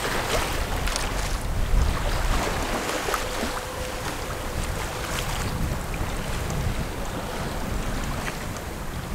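Wind buffeting the microphone over the rush of water and waves along the hull of a sailing yacht under way.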